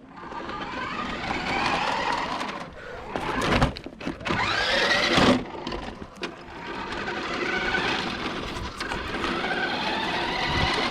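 Electric motors of remote-control toy trucks whining as the trucks drive, with the pitch sweeping up and down about halfway through.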